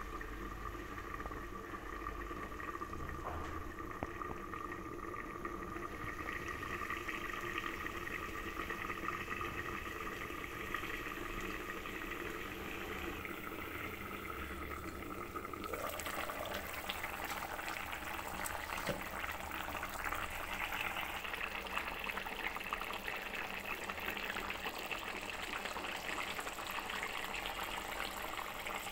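A watery curry with potato and broccoli boiling steadily in a pan, first under a glass lid. About halfway through, the sound grows brighter and more open as the pan is uncovered and the bubbling is heard directly.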